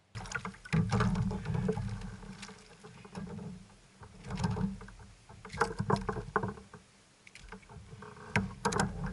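A kayak on open water: splashing and rumbling noise on the boat, coming in uneven swells, with sharp knocks on the hull. The loudest stretches come about a second in, in the middle, and near the end.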